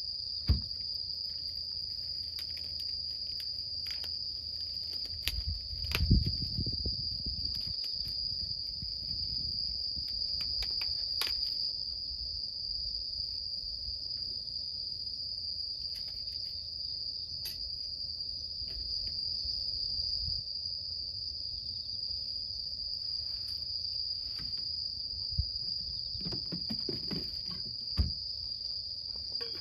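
A steady, unbroken high-pitched insect chorus runs throughout. Now and then it is broken by short knocks and thumps, the loudest about half a second in and around six seconds in, with a few more near the end.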